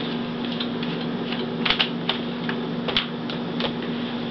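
Phillips screwdriver working a small screw out of a laptop's plastic screen bezel: a run of light, irregular clicks and ticks of metal on screw and plastic.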